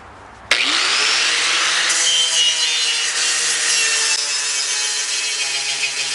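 Electric angle grinder with a knotted wire cup brush switching on about half a second in, its motor pitch rising as it spins up, then running steadily while the brush scrubs the steel truck grille, a loud scratchy hiss. The brush is stripping old paint and rust down to bare metal.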